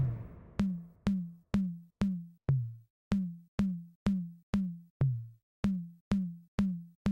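Electronic outro music: a drum-machine beat with a deep kick drum about twice a second. It comes in as the tail of an explosion sound effect dies away at the start.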